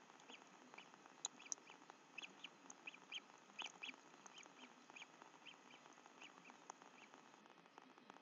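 Faint, short bird chirps repeating irregularly over a steady hiss, with two sharper high clicks a little over a second in.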